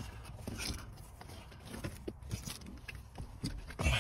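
Small clicks, taps and scraping of a plastic wiring-harness connector and its cables being worked through a gap behind the dashboard trim, with a sharper knock near the end.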